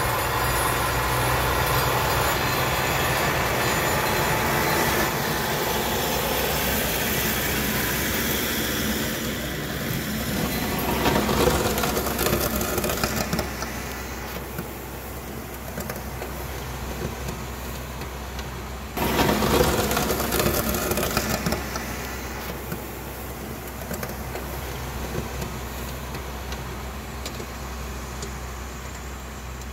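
Kioti diesel utility tractor running as it drives along a snow-covered driveway, a steady low engine drone that swells louder twice as it comes close.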